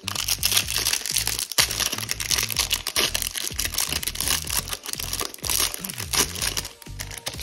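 Plastic wrapper of a trading-card pack crinkling and tearing as it is pulled open by hand, over background music with a low bass line.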